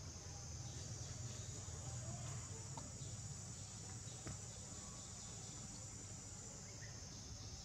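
Steady high-pitched insect chorus over a low rumble, with a few faint clicks.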